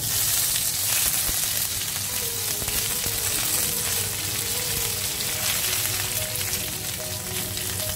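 Curry leaves and dry red chilies sizzling in hot oil with popped mustard seeds: a tempering being fried. A steady crackling hiss begins suddenly as the leaves hit the oil.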